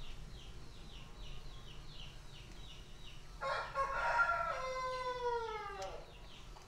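A rooster crowing once, starting about halfway in: one call of about two and a half seconds whose pitch falls away at the end. Faint high chirps repeat about twice a second behind it.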